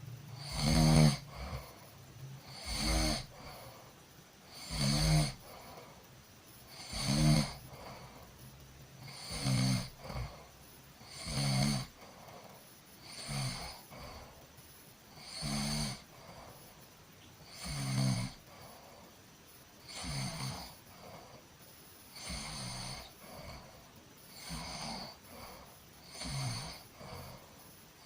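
A sleeping person snoring in a steady rhythm, about one snore every two seconds, each with a low buzz and a hissy edge; some snores are louder than others.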